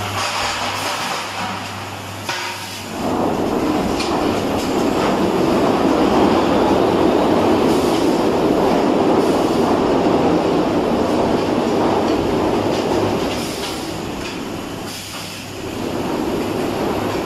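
Automatic bucket filling and capping line running: a loud, steady rushing rattle comes in sharply about three seconds in and eases off near the end, over a constant hum, with a few sharp clicks.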